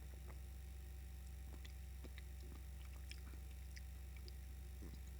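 Quiet room tone with a steady low hum, under faint scattered small clicks and mouth sounds as a hot latte is sipped.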